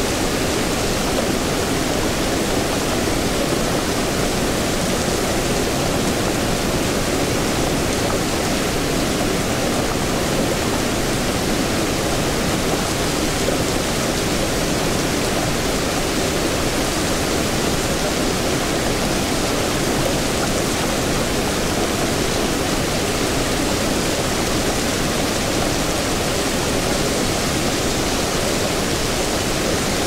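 Rain falling steadily, an even hiss of many drops.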